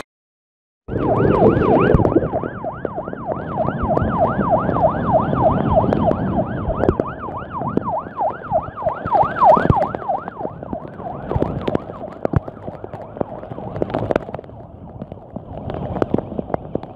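An emergency-vehicle siren in a fast yelp, about three rising-and-falling sweeps a second, over the steady rush of floodwater; it starts about a second in and fades out after about nine seconds, leaving the rushing water with a few knocks.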